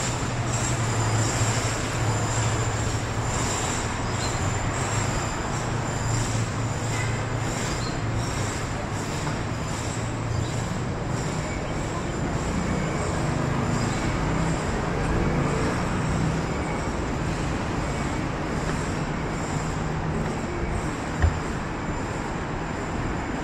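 City street traffic: a steady hum of passing vehicles on the road, with one short thump near the end.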